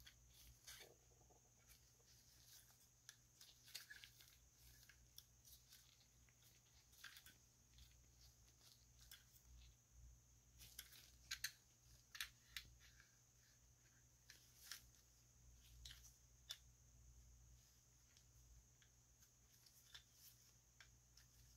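Faint clicks and taps of a plastic Transformers Studio Series 86 Ratchet action figure's parts and joints being handled and fitted together by gloved fingers, with a quick cluster of sharper clicks about halfway through.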